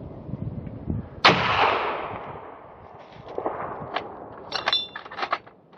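A single gunshot about a second in, echoing and dying away across the valley over a second or two, then a few short sharp clicks and knocks.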